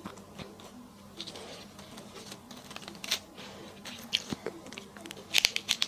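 Close-miked eating sounds: chewing with scattered sharp mouth clicks, and a quick run of louder clicks near the end.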